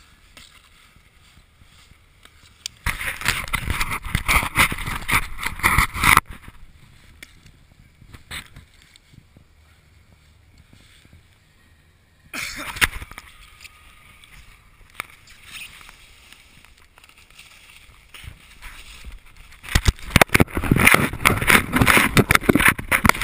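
Handling noise on an action camera: fabric rubbing and scraping over its housing and microphone, in a loud crackling stretch about three seconds in, a short burst near the middle, and another loud stretch near the end.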